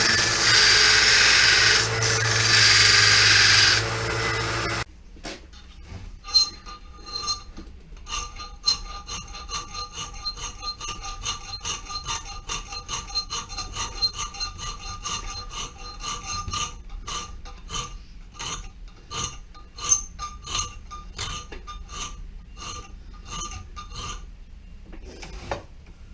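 An electric sander grinding a steel saw-blade knife blank, its motor hum and grinding cutting off suddenly about five seconds in. Then comes a long run of quick hand strokes rubbing or filing the steel, and the thin blade rings faintly with each stroke.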